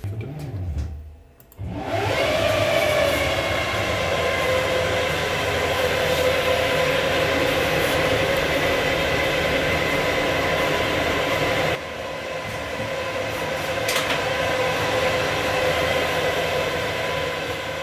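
Wheel assembly running on a dynamometer, its motor driving it through the transmission with the tyre rolling on a steel drum. It spins up about a second and a half in with a briefly rising whine, then runs as a steady whine over a rolling hum, with a single sharp click about two-thirds of the way through. This is the start of a long high-mileage test of the wheel bearing and transmission.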